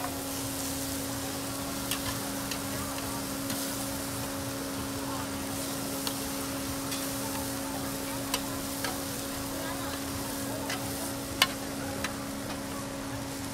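Oyster omelettes sizzling on a large round griddle while metal spatulas scrape and click against the pan, one knock standing out near the end. A steady low hum runs underneath.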